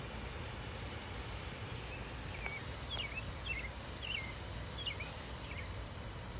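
A small bird chirping about seven short, quick notes over a steady low outdoor rumble; the chirps start about two seconds in and stop shortly before the end.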